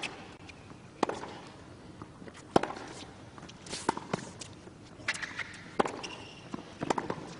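Tennis rally: a string of sharp pops from the ball being struck by racquets and bouncing on the court, about one a second, with footsteps between shots.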